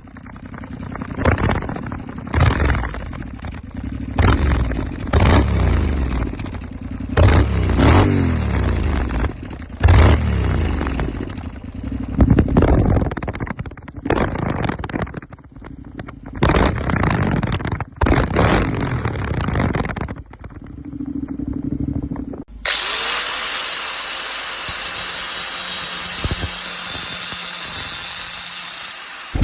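Honda NC-series parallel-twin motorcycle engine with an aftermarket end can, revved in a series of quick blips that each fall back toward idle. Near the end it gives way to a steady hiss.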